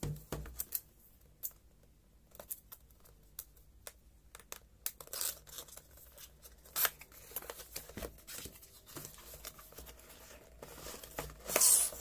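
Cardboard box being handled: scattered taps, scratches and scrapes of fingers on a card sleeve, then a louder sliding rush near the end as the inner box slides out of the outer sleeve.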